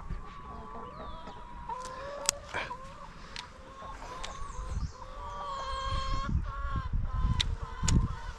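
Laying hens clucking, with drawn-out calls that rise and fall. Short sharp chirps come through now and then, and wind rumbles on the microphone, loudest near the end.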